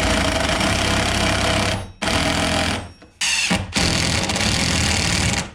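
Power driver running in three bursts as it drives screws to fix a raceway mounting bracket to the wall. The first burst lasts about two seconds, the second is short, and the third, after a brief pause, runs about two seconds more.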